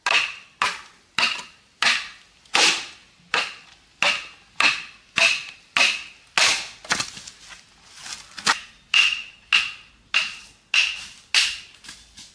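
Machete chopping into bamboo: a steady run of sharp, ringing strikes, a little under two a second.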